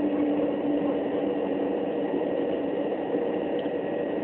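Inside a Class 375 Electrostar electric multiple unit running at speed: steady rumble of wheels on rail with a faint electric motor hum whose lower tone eases off about halfway.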